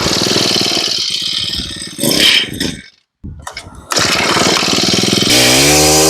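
Honda GX25 four-stroke brush-cutter engine running on a test start, with a brief break about three seconds in. Near the end it is revved up to high speed.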